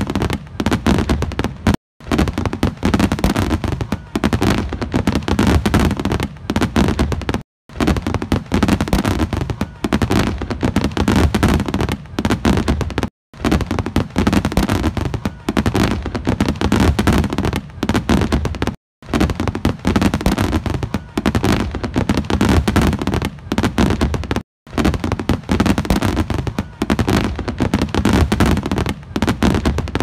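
Fireworks display: a dense, continuous barrage of bangs and crackles. It cuts out briefly about every six seconds and starts again at once.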